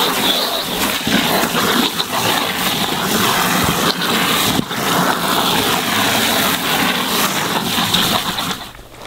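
Water spraying from a garden hose nozzle into a plastic cooler, splashing and churning a salt and brown-sugar brine into foam as the cooler fills. The spray stops shortly before the end.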